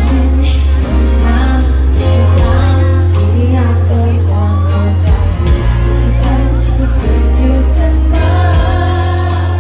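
Live band performance: a woman sings the lead melody over heavy, sustained bass notes that change every second or so.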